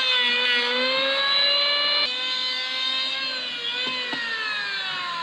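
A motor running fast with a strong whine, its pitch wavering, then, after a sudden break about two seconds in, falling steadily.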